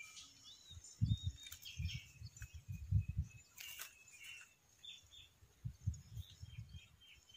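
Small birds chirping intermittently in open farmland, with several short, low rumbles in between.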